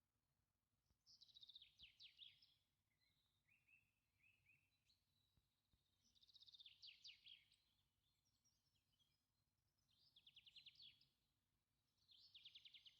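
A songbird singing faintly: four short trilled phrases of rapid notes, with softer chirps between them.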